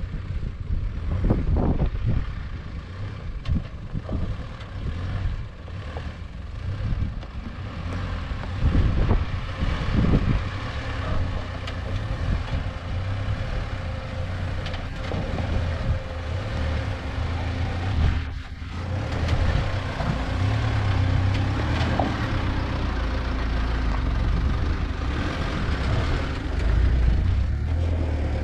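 Mitsubishi Pajero SUV's engine running at low speed as it crawls over rough, loose rock, with the tyres grinding on stone. There are a few thumps in the first ten seconds.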